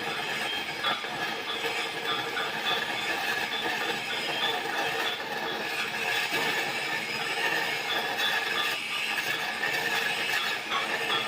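Stick-welding arc of a 2.5 mm E6011 electrode crackling steadily during a root pass on pipe.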